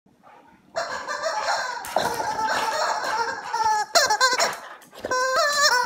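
Rubber chicken toy squawking as it is squeezed: a run of long, wavering squeals, starting just under a second in, with short breaks between squawks.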